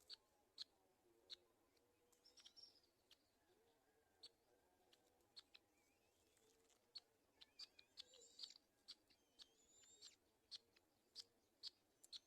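Faint bird calls: a scatter of short, sharp chips at irregular intervals, and a few thin gliding chirps, mostly in the second half.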